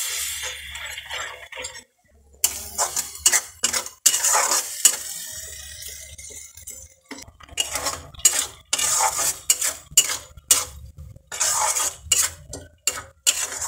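A metal spatula stirring and scraping thick tomato masala in a metal kadhai, in quick strokes with short pauses between bursts.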